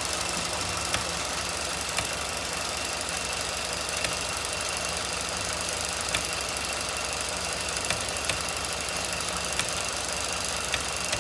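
Sharp single clicks from a 2016 Ford F-150 5.0, about eight of them a second or two apart at uneven spacing, over a steady engine hum. The owner takes the clicking for something cycling on and off rather than the engine itself.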